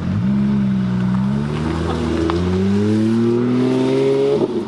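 Porsche 911 GT3 RS's naturally aspirated flat-six engine accelerating away, its revs climbing steadily for about four seconds, then dropping abruptly near the end.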